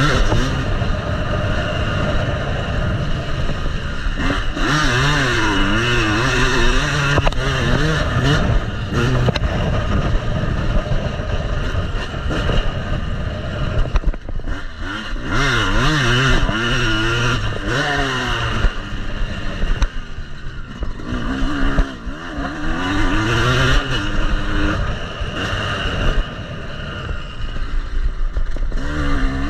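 Yamaha motocross bike's engine being ridden hard on a dirt track, its pitch winding up and dropping again and again as the rider accelerates, shifts and backs off for corners, with rattling from the bike and rushing air on the handlebar-mounted camera.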